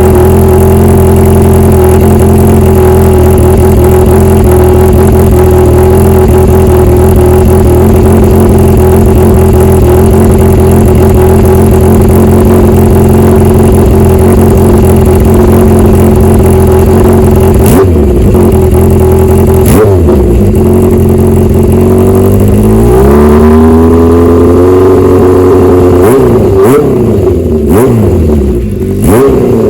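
Honda CB750 Four's air-cooled inline-four running loud through an MRS hand-bent 4-into-1 collector exhaust with a racing baffle. It idles steadily, gets two quick throttle blips, is held at raised revs for a few seconds, then is blipped several times in quick succession near the end.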